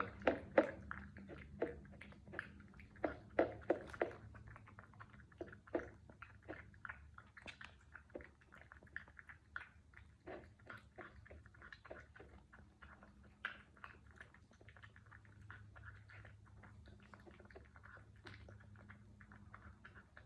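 A pet eating, chewing and crunching its food in many short, irregular crunches that are loudest and closest together in the first four seconds, then go on more lightly.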